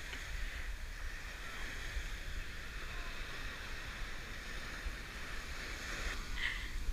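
Small surf waves washing steadily up a sandy beach, with a low rumble of wind on the microphone.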